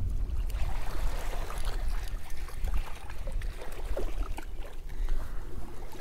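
Wind buffeting the microphone as an uneven low rumble, with small waves lapping at the shoreline.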